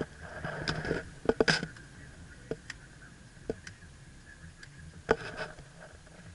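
Camera handling noise inside a car: a cluster of knocks and rubs in the first second and a half, then single clicks about two and a half, three and a half and five seconds in. Under them runs a low steady hum and a faint, thin steady tone.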